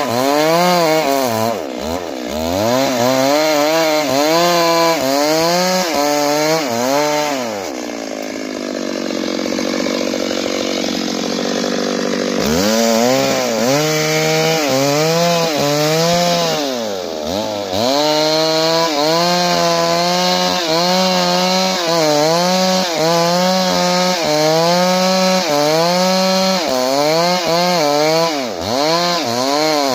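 Two-stroke chainsaw cutting into a large tree trunk, its engine pitch rising and sagging over and over as the chain bogs down and frees in the wood. About eight seconds in it settles to a lower, steadier note for some four seconds, then goes back to cutting with the same rise and fall.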